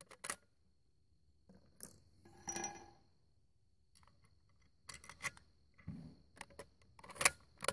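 Bolt of a Remington 722 bolt-action rifle being worked by hand: a few quiet metallic clicks, a short sliding scrape about two and a half seconds in, then a run of small clicks near the end.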